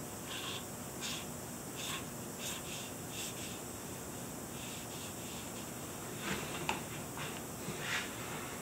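A small watercolour brush dabbing and stroking on drawing paper: a string of short, soft scratchy strokes, a dozen or so, with a couple of sharper ticks a little past the middle, over a faint steady hiss.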